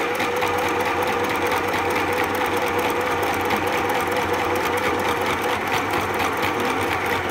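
Sew Simple FHSM 505 mini sewing machine running steadily, its needle stitching with a rapid, even rhythm over a steady motor whine, while sewing with a knit presser foot; it stops suddenly near the end.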